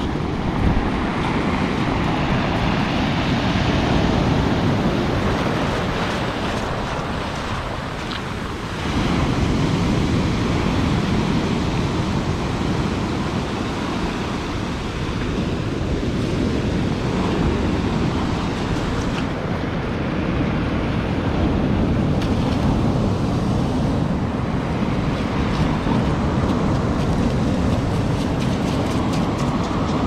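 Storm surf breaking and washing up a pebble beach in a steady churning rush, easing briefly about eight seconds in, with wind on the microphone.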